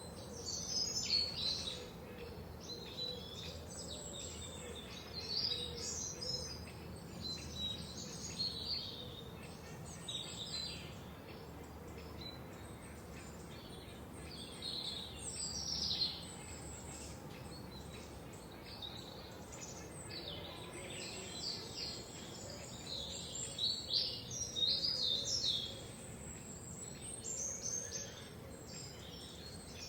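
Several songbirds chirping and singing, short high-pitched calls and trills overlapping in irregular bursts, over a faint steady background noise.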